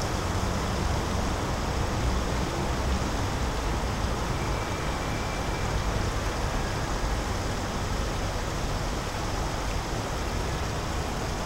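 Steady city background noise: a constant low rumble with an even hiss over it, like distant road traffic.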